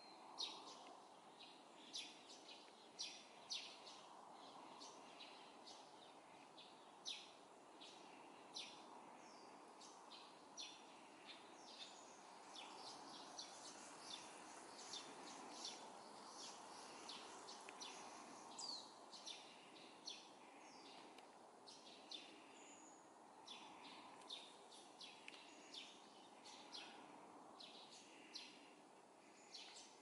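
Eurasian tree sparrows chirping: many short, high chirps, some single and some in quick clusters, over a faint steady background rumble.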